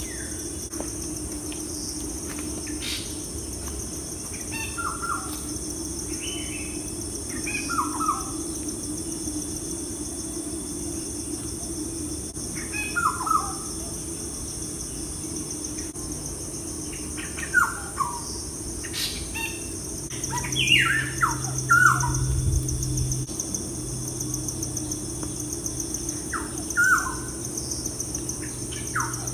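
Birds calling in short, falling chirps every few seconds, clustered more thickly near the end, over a steady high drone of insects and a low steady hum.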